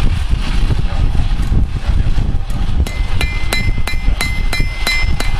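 Blacksmith's hammer striking hot iron on an anvil at the forge: about nine ringing blows, roughly three a second, starting about halfway through. A low rumble runs underneath.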